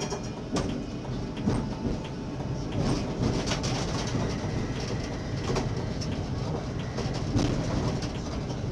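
Tram rolling over street-track rails through a junction: a steady rumble from the wheels, broken by irregular sharp clicks and knocks as they cross the switches and rail crossings.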